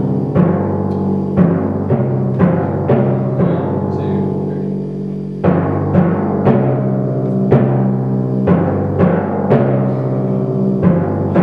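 Timpani struck with mallets in a steady rhythm of about two strokes a second, each stroke ringing on with a deep pitched tone that moves between the drums. The strokes pause for about a second and a half near the middle, leaving the drums ringing, then resume.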